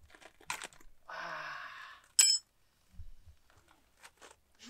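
A cordless drill-driver runs for about a second, then a sharp metallic clink with a brief ring, the loudest sound, followed by a few light clicks and knocks.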